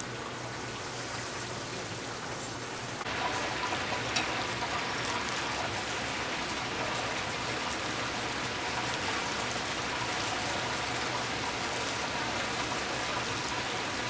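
Chicken deep-frying in a pot of hot oil: a steady sizzling hiss that turns louder about three seconds in, over a faint low hum.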